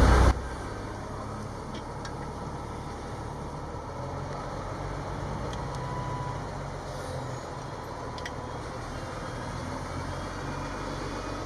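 Crane truck's engine running steadily with a low hum, with a few faint clicks.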